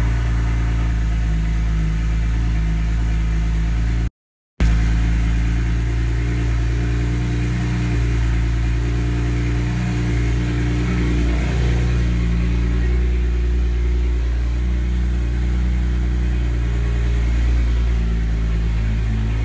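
BMW 335i's N54 inline-six, fitted with an ON3 single-turbo kit, idling steadily just after being started, settling from the start-up flare into an even idle. The sound drops out for about half a second some four seconds in.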